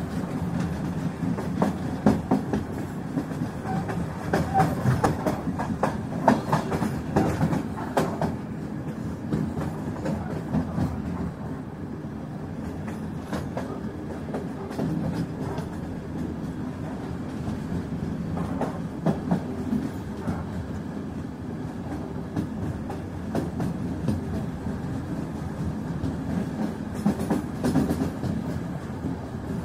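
A steady rumble with many irregular sharp clicks and knocks, busiest in the first few seconds and again near the end.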